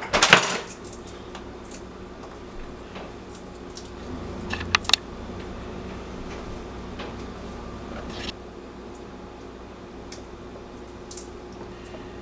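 Kitchen handling sounds: scattered clicks and knocks of utensils and packaging being handled over a steady low hum. The loudest knocks come just after the start and again around five seconds in.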